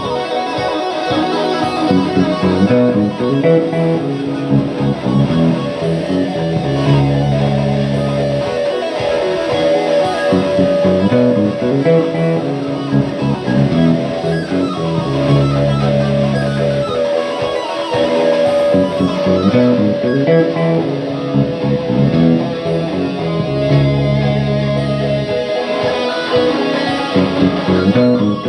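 Electric guitar played live: dense chords and melodic lines over low sustained bass notes that return every several seconds.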